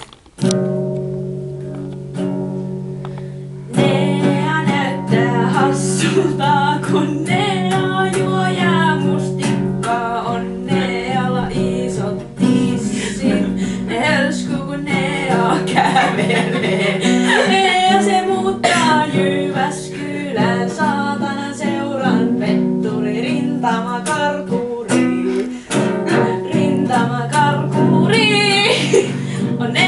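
A woman singing to her own strummed nylon-string classical guitar. The first few seconds are guitar chords alone, and the singing comes in at about four seconds.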